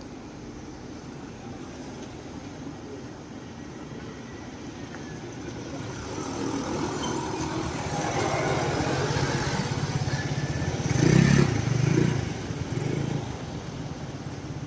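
Street traffic: a motor vehicle passes close by, its engine and tyre noise building over several seconds, loudest about eleven seconds in, then fading away.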